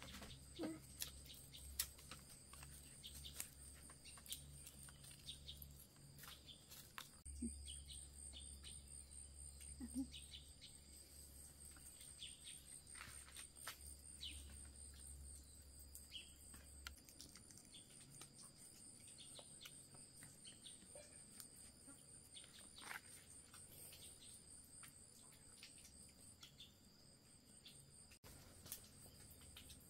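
Faint, steady high-pitched chirring of insects, with scattered small clicks and taps.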